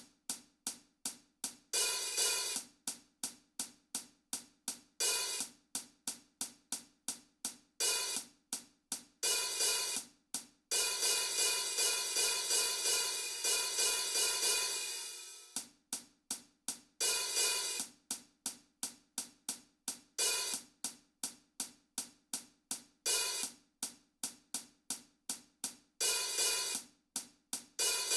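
Hi-hat and tambourine playing a steady pattern of short metallic ticks, about four a second, with occasional longer open hits. About eleven seconds in, a sustained shimmering wash holds for several seconds, fades and stops before the ticking resumes.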